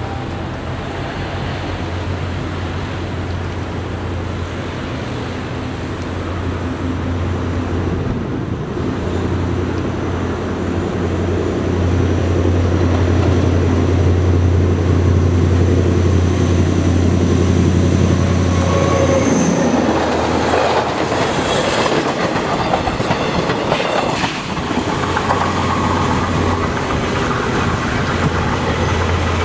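KTM Class 24 diesel-electric locomotive hauling a train and running past: a steady low engine drone grows louder as it approaches. About twenty seconds in, a rougher clattering stretch of wheels on the rails follows as the train goes by.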